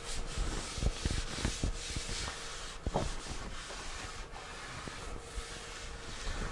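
A tack cloth wiped by hand across a finished oak tabletop in sweeping strokes, making a continuous dry rubbing swish, with a few light knocks of the hand on the wood in the first half. The wipe lifts dust off the surface before the epoxy coat.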